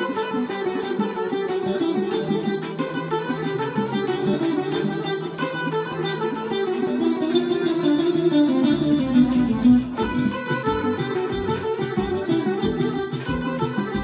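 Electric guitar played through an amplifier, a continuous stream of quick single notes in a melodic line.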